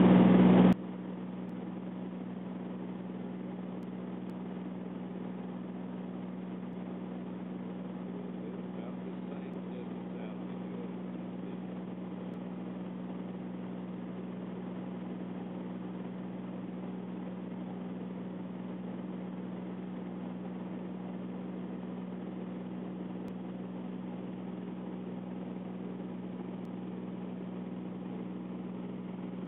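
Small plane's engine running steadily, heard from inside the cabin as an even drone. It is much louder at first and drops abruptly to a lower, constant level just under a second in.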